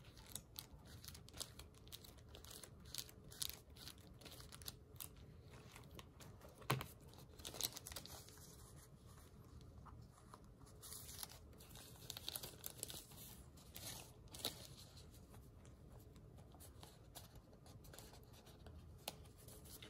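Faint rustling and crinkling of paper sticker sheets being handled and shuffled through, with scattered light ticks and a few sharper ones.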